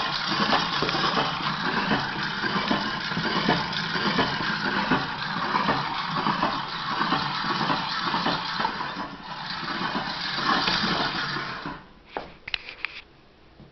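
The 12-inch belt wheel of an antique Enterprise No. 32 meat grinder spinning freely on its shaft: a steady whirring rattle with many small ticks. It dies away about twelve seconds in, followed by a few light clicks.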